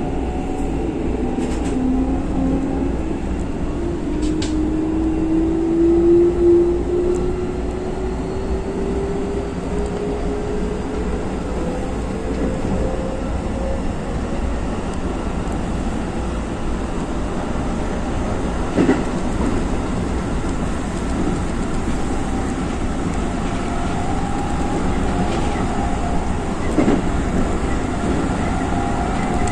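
Keikyu electric train running under power: the motor whine rises steadily in pitch through the first dozen seconds as the train accelerates, over a steady rumble of wheels on rail. A few sharp clicks come through.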